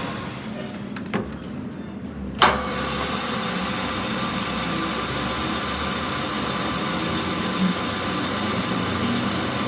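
A machine running steadily, with two sharp clicks about one second and two and a half seconds in, the second louder.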